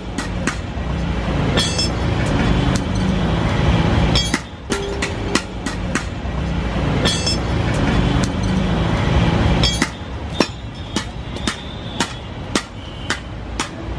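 Ringing metal clinks and hammer strikes on steel at a blacksmith's anvil, over a steady rumble that drops away about ten seconds in, after which the strikes come about two a second.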